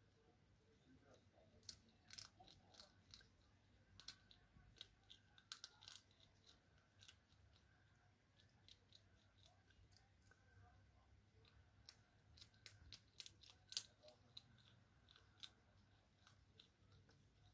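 European hedgehog chewing dry cat kibble: faint, irregular crunches, with one louder crunch about fourteen seconds in.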